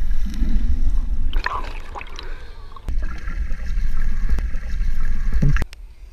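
Muffled low rumble and bubbling of water, as heard by an action camera held underwater while people swim, with a few faint clicks. It cuts off suddenly near the end.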